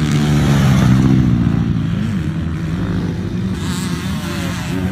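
Motocross dirt bike engine running and revving, its pitch wavering up and down and climbing near the end.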